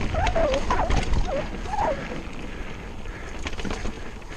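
Mountain bike running fast down a dirt woodland trail: a rumble of wind buffeting the microphone and tyres on dirt, with clicks and rattles from the bike over bumps. A wavering squeal sounds in the first two seconds, and the whole thing eases off slightly after that.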